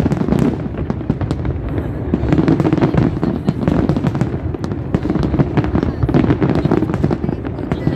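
A large aerial fireworks display: shells bursting and crackling in quick, continuous succession, with spectators' voices underneath.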